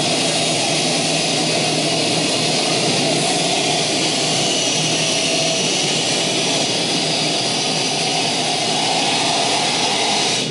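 Loud, steady electronic noise drone from the performance's composed soundtrack: a dense hiss-like wash with a faint low hum beneath it, cutting off suddenly at the very end.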